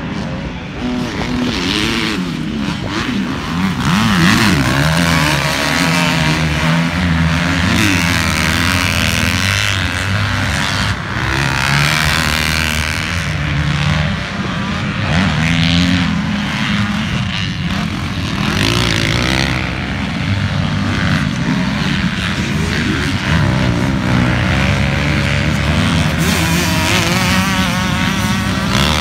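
Motocross dirt bike engines racing on the track, their pitch rising and falling continuously as riders rev, shift and back off over the jumps and turns.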